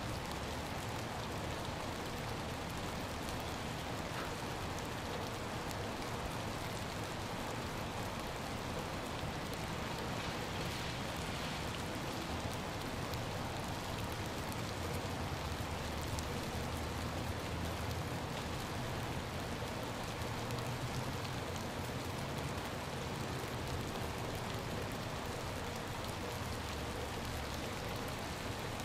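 Steady ice rain falling, an even patter of fine drops with a low rumble underneath.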